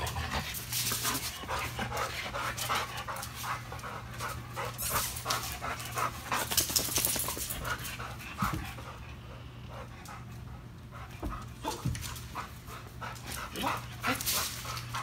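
A dog panting hard in quick, rapid breaths during play, with scuffling and knocking as it tugs on a ball-on-a-rope toy over a concrete floor.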